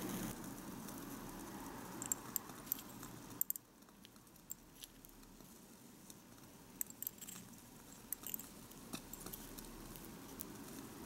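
Scattered small, sharp clicks and crackles from a miniature ceramic frying pan of French toast, in two clusters: one about two seconds in, the other about seven seconds in.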